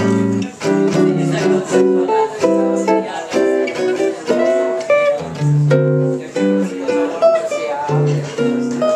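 Jazz guitar solo on a guitar played through a small amplifier, mixing single-note lines with chords and low bass notes, during the song's instrumental break.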